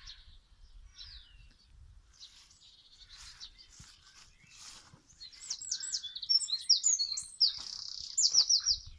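Small songbirds singing: scattered faint chirps at first, then from about halfway a loud run of quick, high, down-sweeping notes and a rapid trill.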